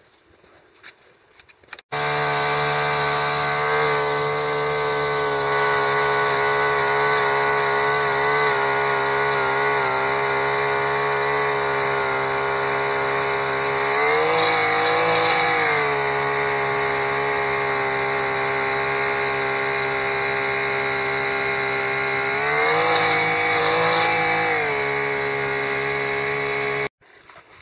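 Hand-held power drill spinning an ice auger through lake ice, a steady high motor whine. The pitch rises briefly twice, as the load on the auger eases, and then settles back. The sound starts and stops abruptly.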